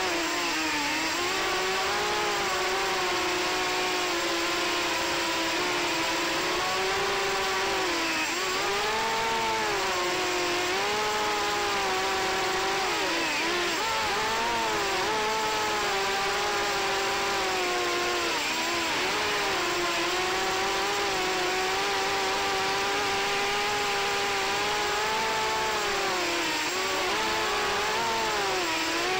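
FPV racing quadcopter's brushless motors and propellers whining, the pitch rising and dipping again and again as the throttle changes.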